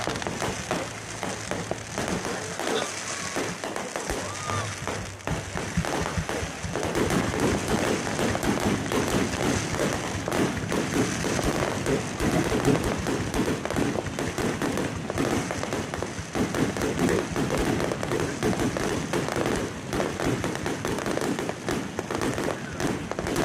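Fireworks going off in a dense barrage of rapid pops and crackles, thickening about a third of the way in and continuing without a break.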